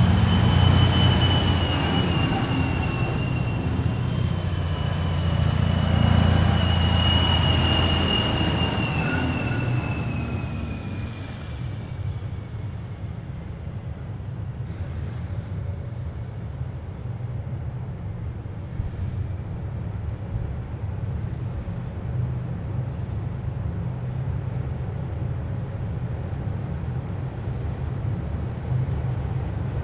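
Heavy military vehicles driving past: a loud low engine rumble with a high whine that slowly drops in pitch as the nearest vehicle moves away during the first ten seconds. After that a steadier, quieter low engine rumble carries on.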